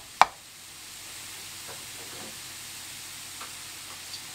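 Cauliflower rice sizzling in a frying pan, a steady frying hiss, with one sharp tap of the metal spatula against the pan just after the start.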